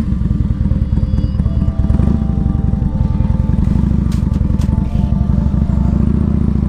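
Harley-Davidson V-twin motorcycle engine running steadily, a loud, rapid low rumble.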